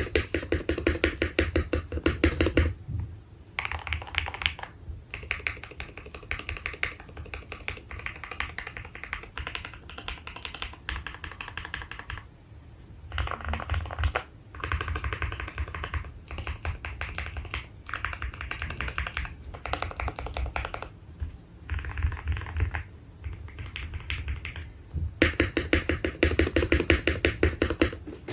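Fast typing on a Tes-68 mechanical keyboard with Milky Yellow switches: rapid runs of keystroke clacks in bursts, with short pauses between them.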